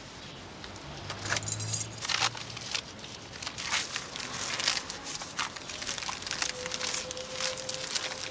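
A bag of dry-mix tile adhesive crinkling and rustling as hands tear into it and dig through the powder, in a run of irregular crackles.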